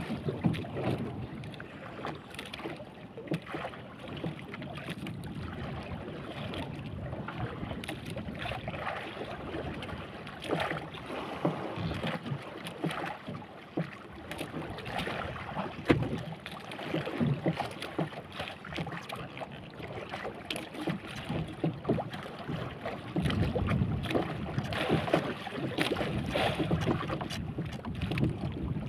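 Wind buffeting the microphone over open sea, with water slapping against a small wooden boat's hull and scattered knocks and taps, growing louder about three-quarters of the way through.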